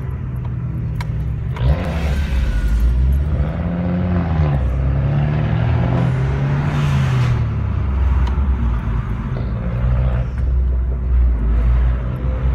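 Car engine and road noise heard from inside a moving car's cabin, the engine note rising and falling in pitch a few times as the car accelerates and eases off.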